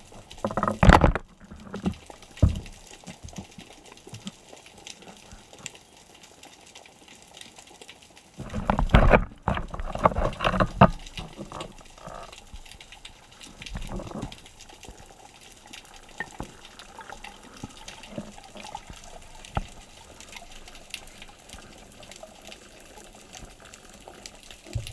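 Water and bubbles heard through an underwater camera: a low, muffled wash with scattered clicks and knocks. There is a short louder flurry about a second in and a longer stretch of dense bubbling and crackle from about eight and a half to eleven seconds.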